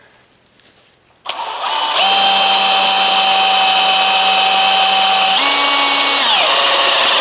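Cordless drill starting suddenly about a second in and drilling into the cart's metal frame with a step-tipped bit: a steady motor whine over a cutting hiss. The pitch steps up about two-thirds of the way through, then drops back.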